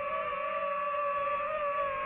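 DJI FPV quadcopter's motors and propellers whining steadily in flight. The pitch wavers slightly as the throttle changes.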